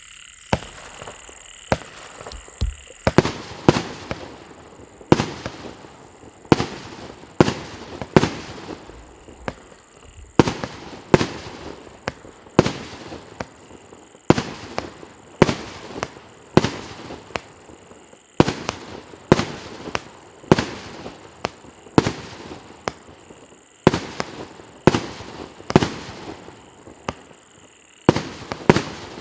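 Consumer fireworks cake (battery) firing its shots in a steady sequence, about one every second and a half, each sharp report followed by a fading tail.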